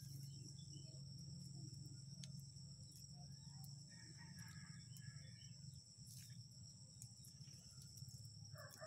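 Faint outdoor quiet with a steady high insect whine and a low hum; a rooster crows near the end.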